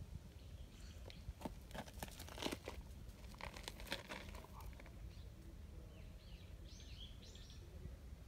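Dry leaf litter crackling and crunching in a run of sharp rustles from about one to five seconds in, as the cat and the hand petting it shift on the leafy ground. Near the end a few short, high, falling bird chirps.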